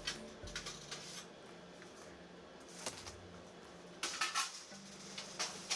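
Metal baking pans and sheet trays clattering and knocking as they are handled, in scattered single knocks and a denser burst of clatter about four seconds in, over a low steady hum.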